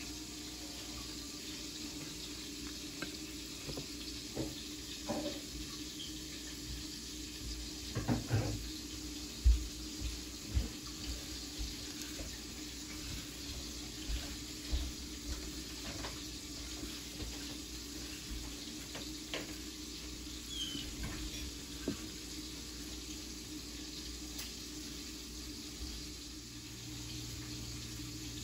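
Hands tossing chopped herbs and salted cherry tomatoes on a ceramic plate, with scattered soft knocks and clicks, the loudest around the middle. Underneath runs a steady hiss with a low hum.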